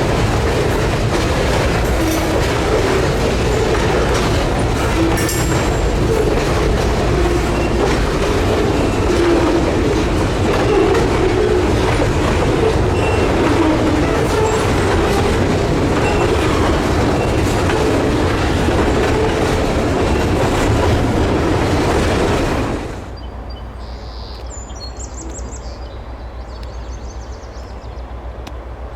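A long freight train's cars rolling past, a loud steady rumble of wheels on the rails. About 23 s in it cuts off abruptly, leaving much quieter outdoor background with a few faint high chirps.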